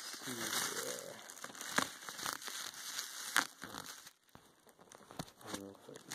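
Plastic bubble wrap crinkling and rustling as it is handled and pulled off a box, with a few sharp crackles.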